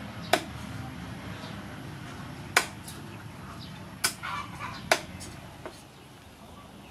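Cleaver chopping through a sea fish on a thick wooden chopping block: four sharp chops a second or more apart, with a couple of lighter taps between them.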